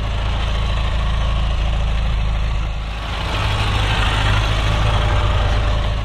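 Bulldozer's diesel engine running steadily with a deep, even pulse, easing off slightly about halfway through and picking up again.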